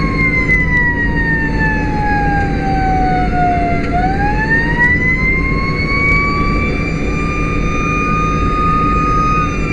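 Whelen Sapphire electronic siren sounding a wail, heard from inside the pickup's cab. It makes one slow cycle, its pitch falling for about four seconds and then rising again, over the steady rumble of the truck's engine and tyres.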